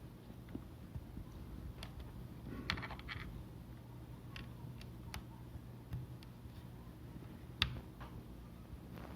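A few scattered light clicks and taps from hands handling things, with a brief cluster about three seconds in and one sharper click later, over a steady low hum.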